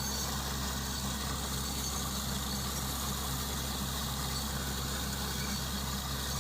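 Borewell drilling rig's engine idling steadily: a low, even drone.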